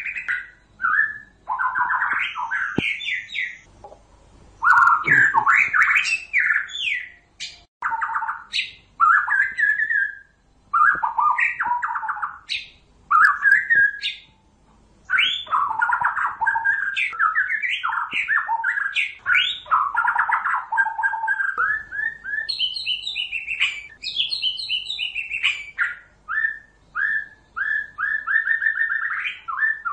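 White-rumped shama singing: a long run of varied, quick whistled phrases broken by short pauses, with one stretch pitched higher about three-quarters of the way through.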